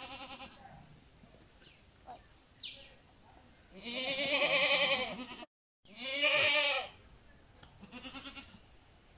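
Goat bleating: long, quavering bleats, the two loudest back to back between about four and seven seconds in, then a shorter, fainter one about eight seconds in.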